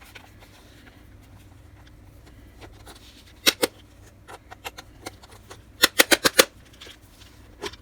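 Sharp plastic clicks and taps as the back case of a small handheld digital multimeter is worked and pried open at its clips: two clicks about halfway through, then a quick run of five a couple of seconds later.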